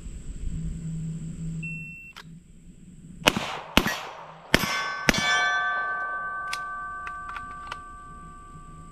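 A shot timer's short start beep, then four gunshots in under two seconds at steel targets. The first shot misses; the later hits set the steel plates ringing with a long, fading clang.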